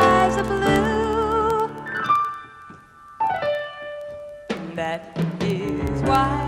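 Pop ballad performance with piano and band: a held note with vibrato over sustained chords, dying away to a brief lull about halfway through, then piano-led accompaniment coming back in.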